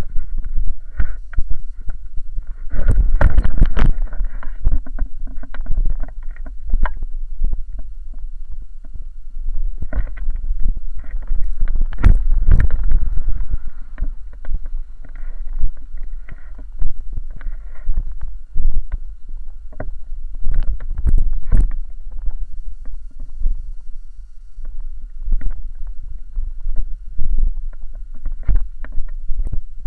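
Rollerblades rolling on a paved sidewalk: a continuous low rumble with frequent irregular knocks and clatters, and wind buffeting the microphone.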